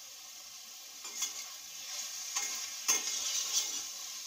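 Tomato and spice masala sizzling in a stainless steel pot. It is being stirred, and from about a second in there are a few sharp scrapes and knocks of the utensil against the pot, the loudest near the end.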